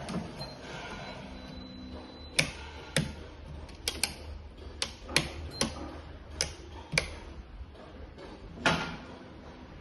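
A series of about a dozen sharp, irregularly spaced clicks and knocks, like small hard objects being handled or set down, over a low steady hum.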